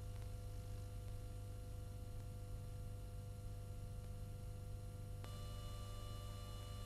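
Faint steady electrical hum with a few thin, steady whining tones above it, and no other sound. A faint click comes about five seconds in, and the set of whining tones changes after it.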